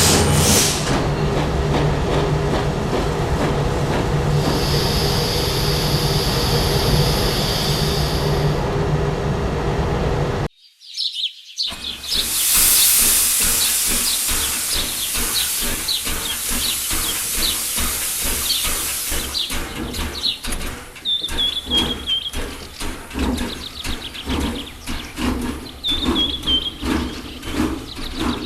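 A locomotive running with a steady low rumble and hum, with a hiss of steam partway through, cuts off suddenly. After about a second of silence, a burst of noise dies away into birds chirping over rapid clicking.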